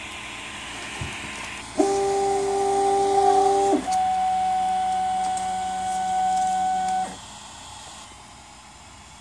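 Prusa i3 MK2S 3D printer's stepper motors whining as the axes move during its calibration routine: a chord of several steady tones for about two seconds, then a single steady higher whine for about three seconds that stops abruptly, over the steady hiss of the print-head fan.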